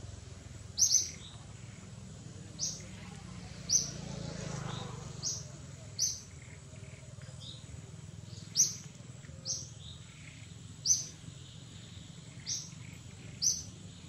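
A bird calling: about ten short, high chirps, one every second or so at uneven gaps, over a steady low background hum.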